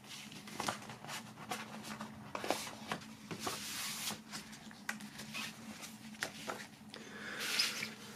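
Paper handling: square photo prints sliding against each other and into a black paper envelope, soft rustling with light taps and scrapes, and a longer sliding rustle near the end.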